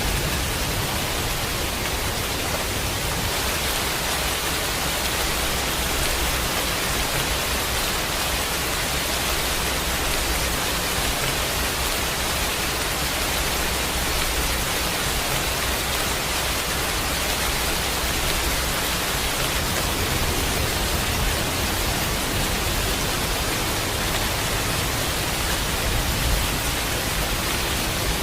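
Steady heavy rain: an even, dense hiss of falling rain with no single drops standing out.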